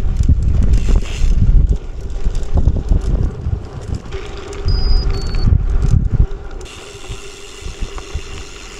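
Bicycle riding over a gravel and sand track, with wind buffeting the microphone. The low gusty rumble is loud for the first six seconds, then drops to a quieter steady rolling noise.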